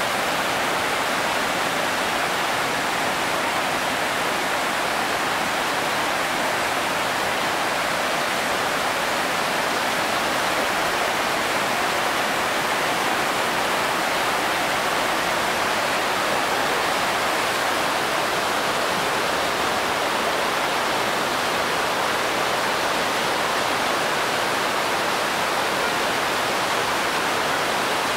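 Steady rush of white-water rapids where the Alaknanda and Mandakini rivers meet.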